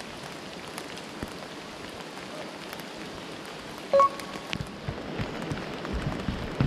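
Steady rain falling on a wet wooden boardwalk, an even hiss. About four seconds in, a short two-note chime sounds.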